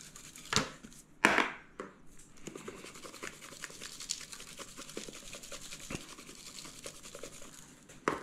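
Two knocks about half a second and a second in, then a shaker of Cajun seasoning shaken over a fish in an aluminium foil pan, a long run of fine rapid rattling as the seasoning sprinkles out, with another knock near the end.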